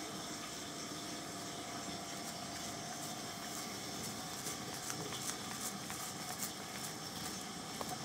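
Thin plastic food wrapper crinkling and rustling in short faint bursts as a cat noses into it, more often in the second half, over a steady background hiss.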